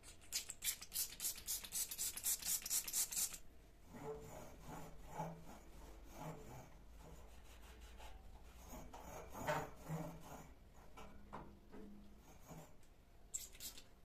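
A trigger spray bottle squirts cleaner onto a microfibre cloth in a rapid run of sharp, hissy sprays lasting about three seconds. Then the cloth rubs over a painted steel panel radiator in uneven wiping strokes. Another short burst of spraying comes near the end.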